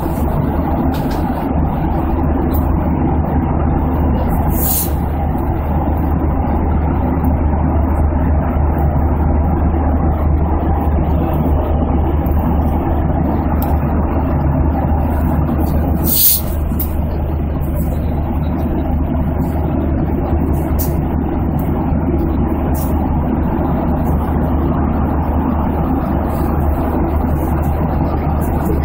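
Steady cabin noise of an airplane in flight: engine and airflow drone, strongest in the low range. A sharp click about 16 s in.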